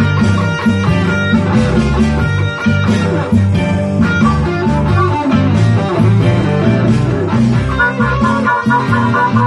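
Live jam of amplified electric guitar playing a steady rhythmic riff, with a harmonica played into a microphone over it; near the end a fast, repeated higher figure comes in.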